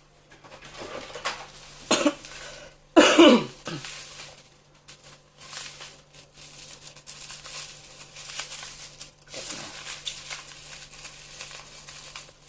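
Plastic and paper parcel wrapping being handled and pulled open, rustling on and off, with a loud cough-like voice sound about three seconds in.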